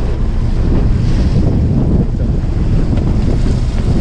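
Strong wind rumbling steadily on the microphone, with sea waves washing against the side of a small fishing boat in a heavy swell.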